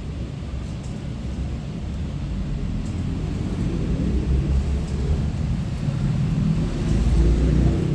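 Low, irregular rumbling noise that grows gradually louder, loudest near the end.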